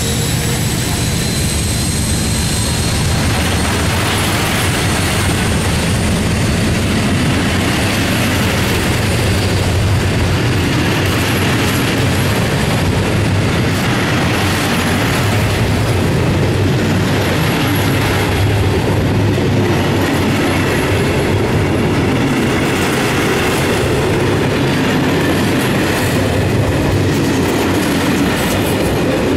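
Loaded log wagons of a freight train rolling past at close range, their wheels clattering and squealing on the track. In the first few seconds a high whine rising in pitch comes from the Class 56 diesel locomotive as it pulls away.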